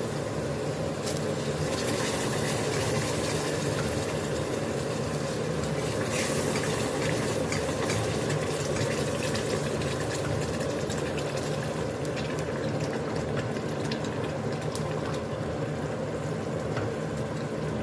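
Pot of cabbage stew simmering on the stove, a steady bubbling, with a few faint clicks of a spoon stirring.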